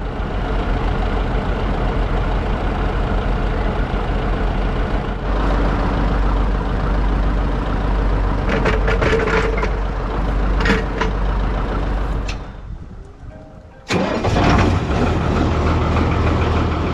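Farm machinery engine running steadily, getting louder about five seconds in, with a few knocks near the middle. It fades away around twelve seconds in and comes back suddenly about a second and a half later.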